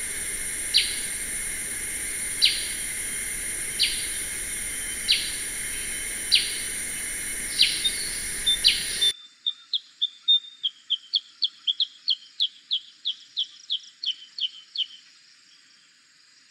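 Black-headed bulbul calls: sharp downslurred notes a little over a second apart over a steady high hiss, then, about halfway through, a quieter, quicker run of short chirps, about four a second, that stops near the end.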